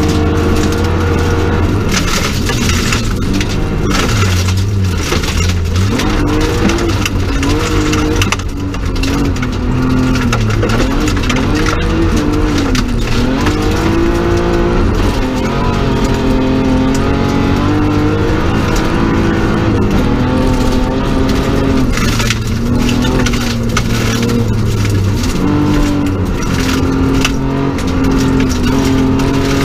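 BMW 325 Group H rally car's straight-six engine heard from inside the cabin, driven hard, its revs repeatedly rising and dropping through gear changes and corners, over steady tyre and gravel noise.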